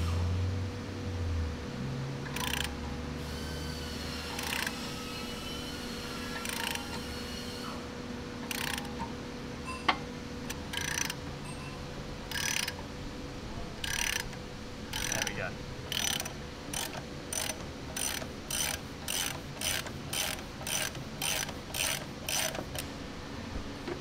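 Socket ratchet clicking in repeated strokes as a three-jaw bearing puller's centre screw is turned on a tank differential shaft. The strokes come about two seconds apart at first and speed up to about two a second near the end, with one sharp tick about ten seconds in.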